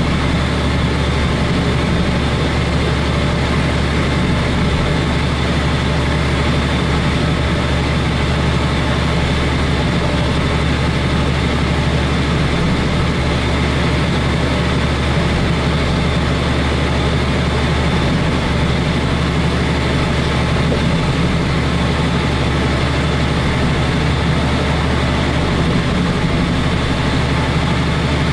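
Semi-truck's diesel engine running steadily under way, a constant low hum heard from inside the cab.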